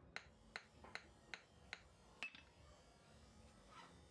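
Light hammer blows on a hand-held chisel or punch set on hot steel, about six sharp taps at an even pace of roughly two and a half a second, stopping about two seconds in.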